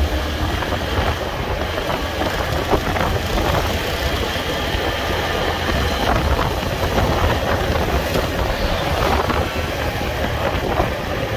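Motorcycle engine running steadily at cruising speed, heard from the rider's seat, mixed with dense road and wind noise.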